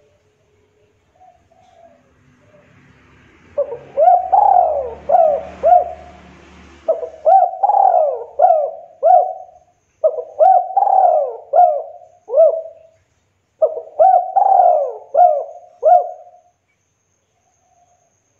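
Spotted dove cooing: four phrases of several short coos each, every coo rising and then falling in pitch, starting a few seconds in and stopping a couple of seconds before the end.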